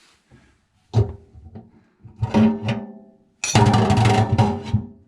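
Music: strummed guitar chords with percussion, the loudest chord about three and a half seconds in.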